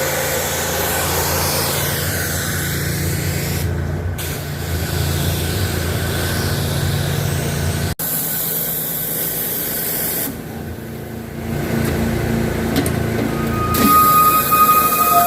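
Honda-engined pressure washer rig running steadily while a high-pressure water spray hisses on concrete sidewalk. The spray drops off for a few seconds past the middle. Near the end, steady high tones join in over the spray.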